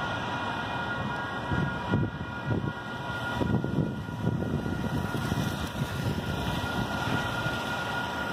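Railroad crossing warning bells ringing steadily over the swish and rumble of traffic on a wet road.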